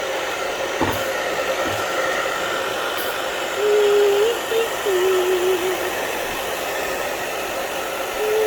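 A hair dryer blowing steadily, drying a Cavapoo puppy. About halfway through, the puppy whines in a wavering tone for about two seconds, louder than the dryer.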